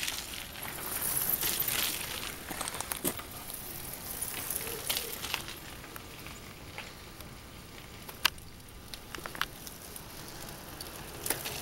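Outdoor noise with scattered clicks, crackles and rustles. In the first couple of seconds a bicycle rolls past over the wooden trestle deck. The sharpest single click comes about eight seconds in.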